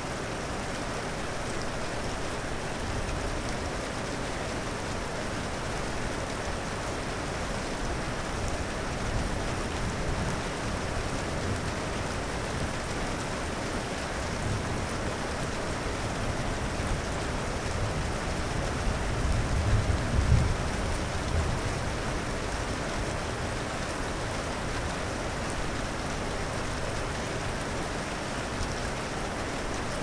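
Steady rain falling throughout, with a low rumble of thunder that swells about two-thirds of the way through and dies away.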